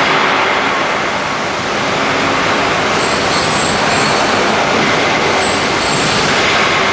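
Steady, loud industrial machine noise with a faint steady high whine, from an automatic steel strapping machine running.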